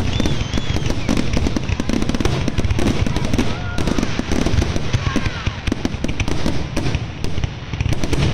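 Aerial fireworks finale: a dense, continuous barrage of shell bursts and crackling, one bang running into the next, easing briefly about seven and a half seconds in.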